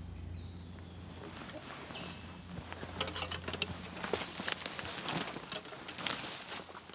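Footsteps pushing through forest undergrowth, with rustling and crackling of leaves and twigs, starting about three seconds in, over a low steady hum.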